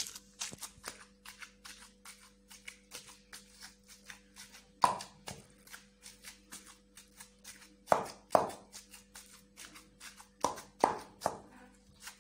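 Wooden pestle pounding raw mutton mince in a clay bowl: a quick run of soft thuds, about three or four a second, with a handful of louder knocks.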